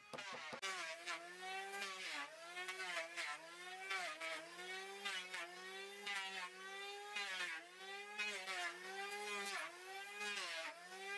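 A motor running with a pitched whine whose pitch dips and rises again about once a second, over and over.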